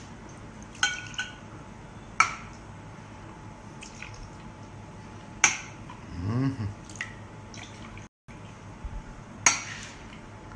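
Glass dishes clinking four separate times, each a sharp clink with a short ring, over faint room noise. A short low sound with a wavering pitch comes about two thirds of the way through.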